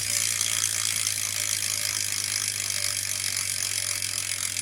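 BMX rear hub freewheeling as the rear wheel spins, its pawls ratcheting so fast that the clicks run together into a steady buzzing rattle.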